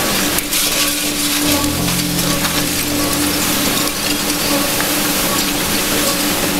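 Steady hiss of wind-driven heavy rain and storm wind, with a steady low hum underneath and a deeper hum for a couple of seconds about a second and a half in.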